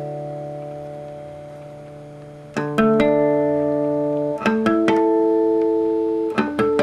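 Instrumental music: a guitar chord rings and fades, then new plucked chords are struck about every two seconds, each held and ringing.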